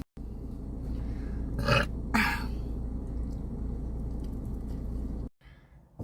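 A woman's throat gives two short, breathy bursts about half a second apart, over a steady low room hum.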